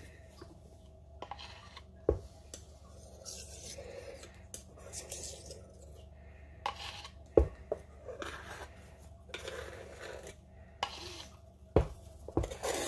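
Metal palette knife scraping wet acrylic pour paint off a ceramic tile in short, irregular strokes, with a few sharp clicks.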